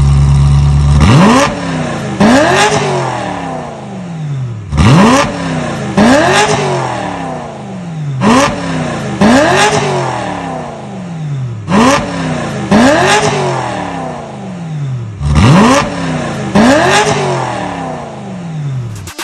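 The 1997 Ferrari 355 GTS's 3.5-litre V8, running through a complete stainless-steel aftermarket exhaust. It idles for about a second, then is blipped in quick pairs of revs about every three and a half seconds. Each rev climbs sharply and falls back, the second of each pair going higher.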